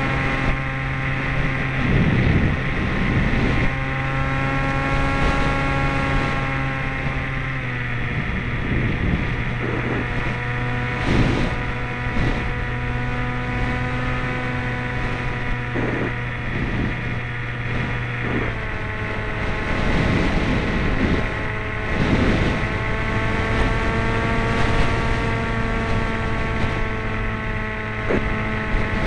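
Motor and propeller of an FPV model aircraft, heard from a camera mounted on the plane: a steady multi-toned whine whose pitch dips slightly about eight seconds in and shifts again near eighteen seconds as the throttle changes. Gusts of wind buffet the microphone now and then.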